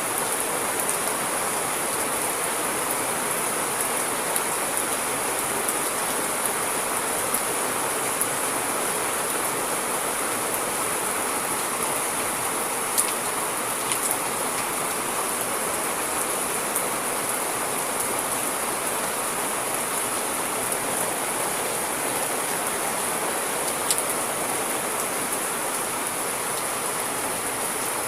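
Rain falling steadily: an even hiss, with a few sharper taps of single drops, the clearest about halfway through and again near the end.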